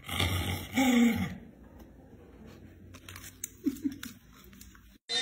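A dog chewing a piece of food, with a few sharp crunches near the end. A louder sound fills the first second.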